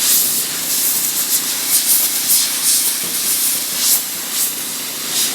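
MIG welder laying weld into bolt holes in the hood's sheet steel, with a ceramic backing pad behind the metal. It makes a steady sizzling hiss with flickering crackle, the wire feed turned down after too much weld was going in.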